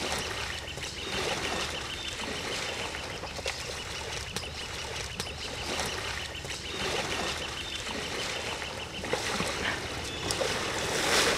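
Canoe paddles splashing and dipping in shallow creek water as an inflatable raft is paddled along, in surges about every second and a half, over a thin steady high-pitched tone.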